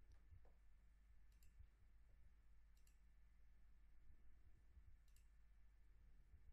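Three faint computer mouse clicks, spaced a second or two apart, over a low steady hum in a near-silent room.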